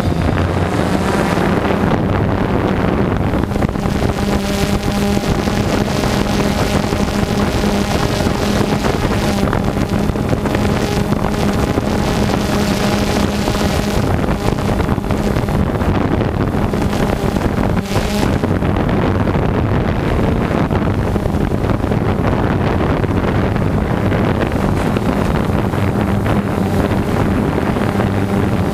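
Small camera drone's electric motors and propellers running with a steady buzzing hum, with wind noise on the microphone.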